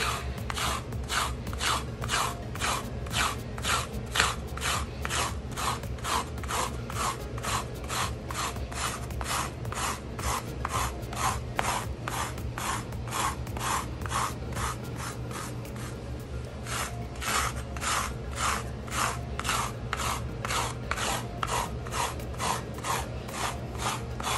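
Uproot fur-removal tool, a toothed blade, scraping over a rough rug in quick, even strokes, about two to three a second, with a short pause about two-thirds of the way through.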